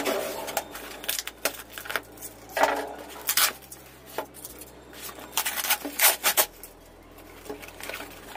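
A large knife slicing and scraping through the taped courier wrapping of a parcel, then irregular rustles and short knocks as the knife is laid down and the parcel is turned over and handled on a wooden table.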